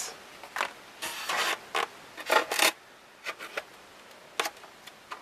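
Polystyrene foam packing tray and parts being handled: foam rubbing and scraping in several short bursts during the first three seconds, then a few light clicks.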